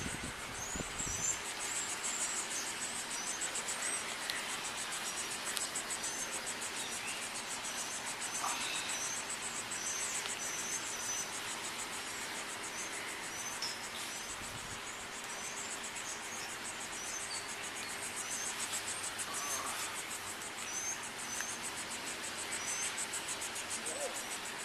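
Insects trilling steadily in a high-pitched, rapidly pulsing chorus, with short high chirps scattered through it and a faint steady hum underneath.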